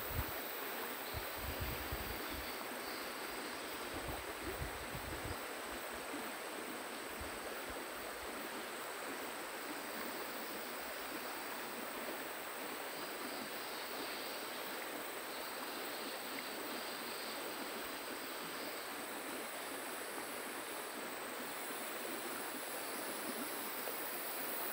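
Steady rush of river water flowing, with some low wind buffeting on the microphone in the first few seconds.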